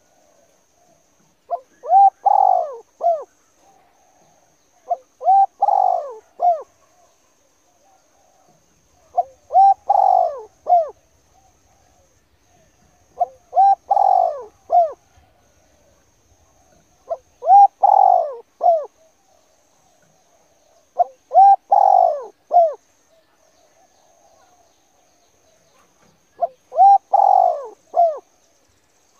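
A dove or pigeon-type bird cooing: a short phrase of several notes, repeated about every four seconds.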